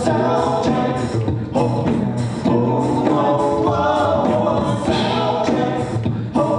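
An a cappella vocal group sings in harmony, while vocal percussion (beatboxing) keeps a steady beat.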